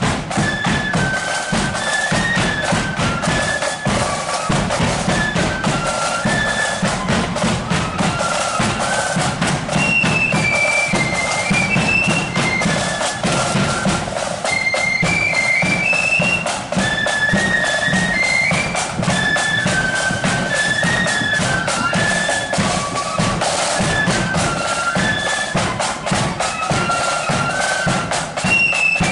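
Marching flute band playing a march tune: a body of flutes carries a high, stepping melody over drums beating steadily underneath.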